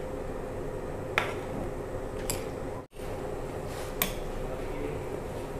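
A metal ladle stirring a coconut-milk stew in a large wok as it nears the boil, with about three sharp clinks of the ladle against the pan over a steady low hiss.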